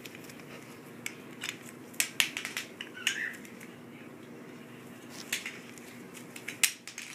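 Scattered light clicks and taps of LeapFrog plastic toy letters being handled and set in place, over a steady low hum.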